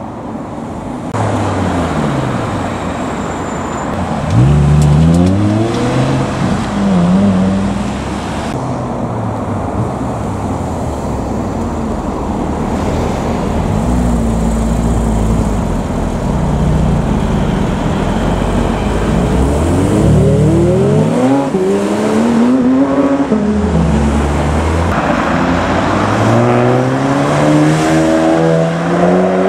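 Cars accelerating hard past one after another. Each engine's pitch climbs and then drops, with a steadier engine drone in the middle stretch and another car revving up near the end.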